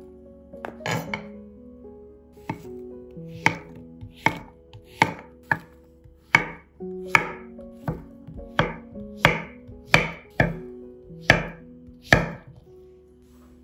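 A kitchen knife slicing through zucchini onto a cutting board: about fifteen crisp cuts, roughly one every three-quarters of a second.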